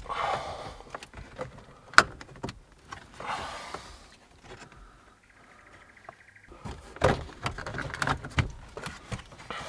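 Plastic dash trim panel of a Toyota Hilux being pulled free by hand: its retaining clips let go with a sharp click about two seconds in, among scraping and rattling of the plastic, with a run of clicks and rattles near the end.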